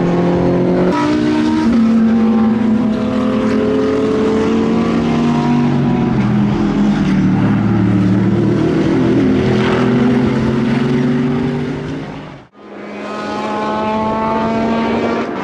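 GT3 race car engines running hard on a circuit, several engine notes overlapping: one jumps up in pitch at a gear change about a second in, and the notes slide down over the following seconds as cars pass and brake. The sound drops out abruptly about twelve seconds in and returns as a steady engine note.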